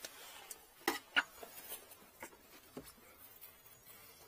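Light handling noises: two sharp clicks or taps about a second in, a few fainter ticks later, over faint rustling.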